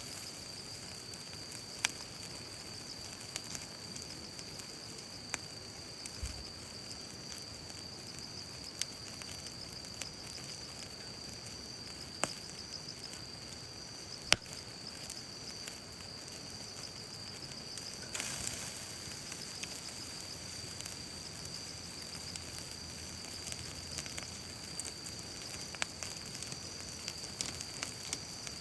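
Wood fire crackling in a folding fire pit, with scattered sharp pops and a slightly louder rush of noise about two-thirds of the way through.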